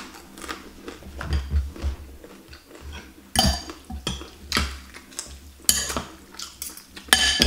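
Metal fork and spoon clinking and scraping against a glass bowl while stirring noodles and soup: a handful of sharp clinks with a short glassy ring, the loudest near the end.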